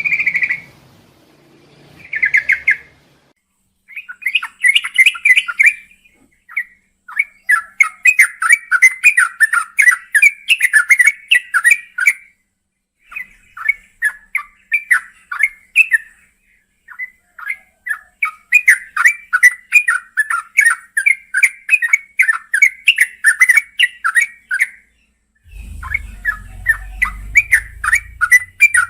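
Yellow-vented bulbul singing long runs of rapid chattering notes, each run lasting a few seconds with short pauses between. A low rumble sounds under the song for a few seconds near the end.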